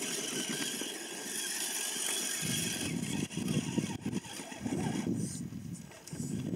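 Electric RC rock crawler's motor and gears whirring as it climbs a rocky slope, coming in uneven bursts from about two and a half seconds in, over a steady hiss.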